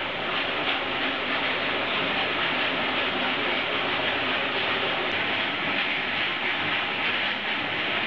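Warping mill running steadily, its belt-driven drum turning as many wool yarn ends are wound on from the creel: a loud, even mechanical noise with no distinct beat.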